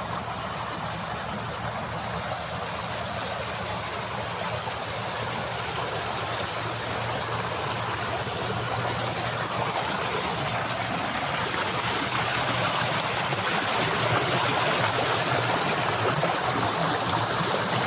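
Waterfall: water falling and splashing in a steady, even rush, growing gradually louder.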